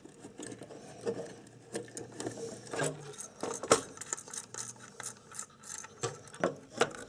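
Irregular small clicks and metallic rattles of fingers turning a loosened potentiometer's mounting nut and handling the pot.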